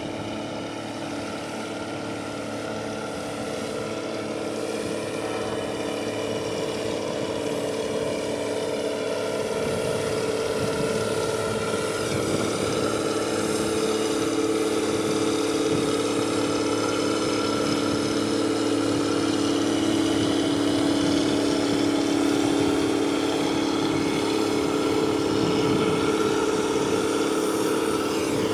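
Steady engine drone of a passing container ship, a deep hum with a few held tones. It grows louder over the first dozen seconds as the ship draws close, then holds.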